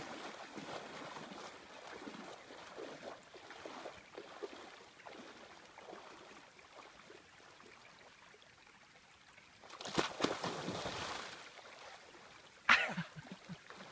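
A person wading through shallow, calm sea water, with soft, irregular sloshing, then a louder splash about ten seconds in as the body goes under. A short, sudden loud sound follows near the end.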